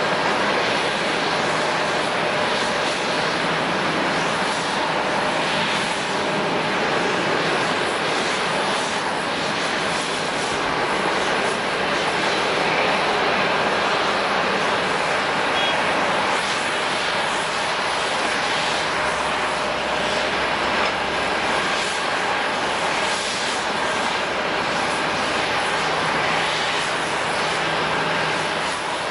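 Jet airliner engines running steadily: a constant rushing noise with a faint high whine that neither rises nor falls.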